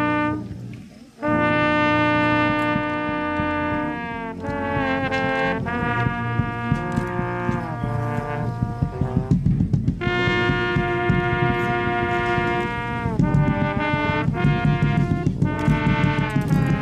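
Brass band playing: trumpets and trombones hold long chords that shift every few seconds, with drum hits underneath that grow busier from about six seconds in. The sound drops out briefly about a second in.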